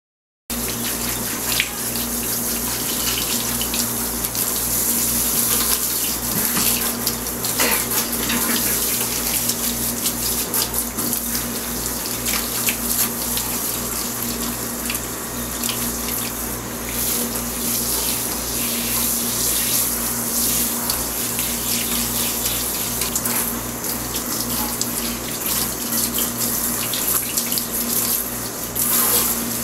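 Tap water running steadily into a sink, starting suddenly about half a second in.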